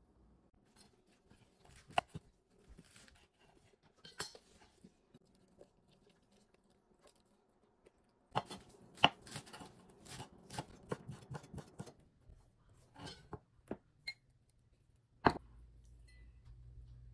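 Dishes and a plate being handled on a kitchen counter: scattered sharp clicks and knocks, a busier run of clatter from about eight seconds in for about four seconds, and a loud knock near the end. A low hum comes in after that last knock.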